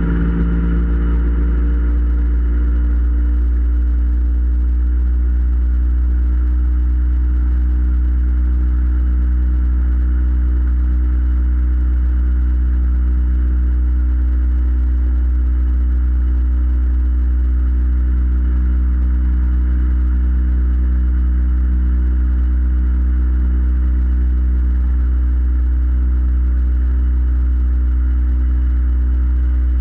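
Boat motor running at a steady cruising speed: a constant low drone with a steady hum above it. The pitch eases down slightly in the first second, then holds.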